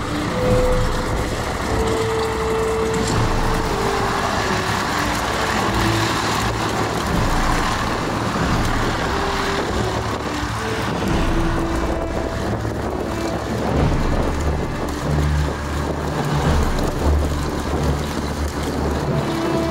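Twin Pratt & Whitney R-1830 radial piston engines of a Douglas C-47 Dakota running at taxi power, a steady deep rumble that grows stronger in the last few seconds.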